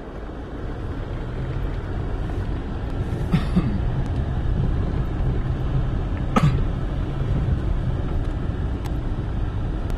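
Car driving on a rough dirt track, heard inside the cabin: a steady low rumble of engine and tyres that grows louder over the first few seconds, with two short sharp sounds about three and six seconds in.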